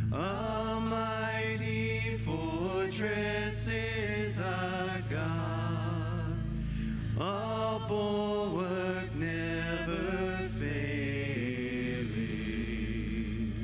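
A man singing a slow song solo into a microphone, holding long wavering notes in phrases, over steady, sustained low backing chords.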